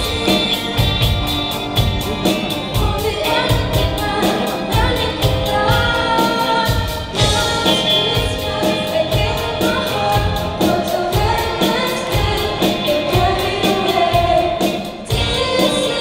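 A live school band plays a pop song: two girls sing over a drum kit, electric guitars, bass and keyboards, with a steady drum beat.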